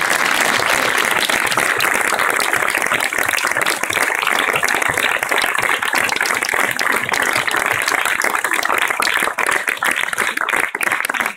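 Applause from a group of people clapping their hands, dense and steady, beginning to break up into separate claps near the end.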